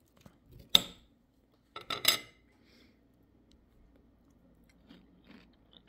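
Metal utensils clinking against a dish: one sharp clink just under a second in, then a short run of clinks around two seconds in.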